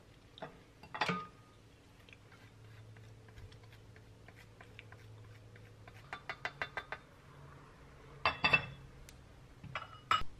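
Block of Parmesan grated on a long handheld rasp grater in a quick, even run of about seven strokes. Clinks and clatter as the metal grater is handled, loudest about eight seconds in and again near the end when it is set down on a plate.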